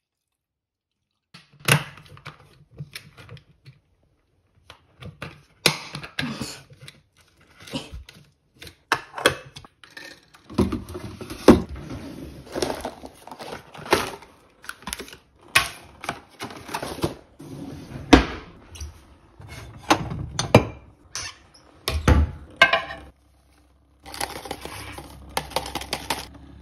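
Kitchen handling sounds while hot chocolate is made with a milk frother: a string of clicks, knocks and packaging rustles as a cupboard, jug and drink sachets are handled. A low hum sits underneath from about ten seconds in.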